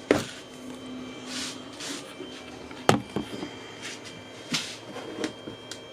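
Handling noises from a cordless impact driver and its battery pack: a sharp plastic click right at the start and a louder one about three seconds in, with a few short rustling swishes and small knocks between.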